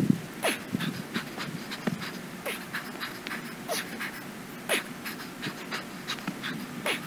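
A man's hard, rapid breathing from exertion during a heavy dumbbell workout. The footage is sped up, so the breaths come as quick, short pants, several a second.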